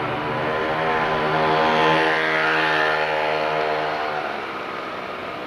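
Sóller electric tram's motors droning at a steady pitch as it runs. The drone swells, then fades, and cuts off about four seconds in.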